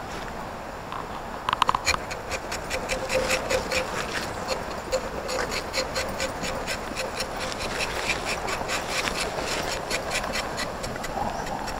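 A rapid run of short, repeated animal calls, several a second, starting about two seconds in after a few sharp clicks, over steady outdoor background noise.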